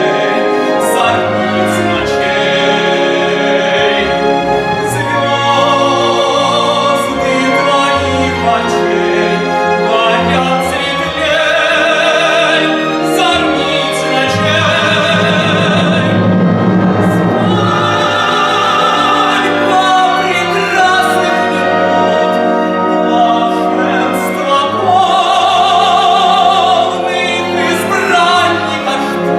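Classically trained solo voice singing a stage number in operatic style, with long notes and strong vibrato, over instrumental accompaniment.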